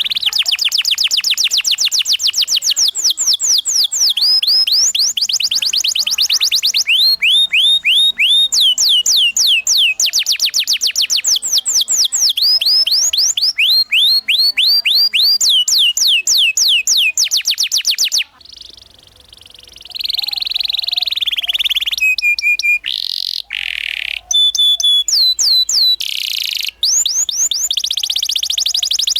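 Domestic canary singing a loud rolling song: rapid trills of quick, evenly repeated pitch sweeps, switching to a new trill every few seconds. The song breaks off briefly about two-thirds of the way through and returns with a few long held whistled notes among the trills.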